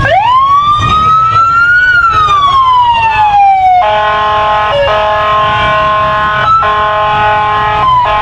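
Police siren: one wail rising over about two seconds and then falling, then from about four seconds a steady blaring horn tone broken by three brief gaps.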